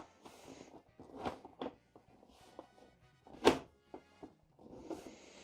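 PC case side cover being forced into place: a series of knocks and clunks with short scraping slides, the loudest knock about three and a half seconds in.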